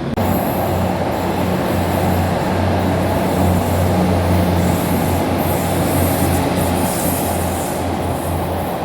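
Train running, with a steady rumble and a low hum underneath.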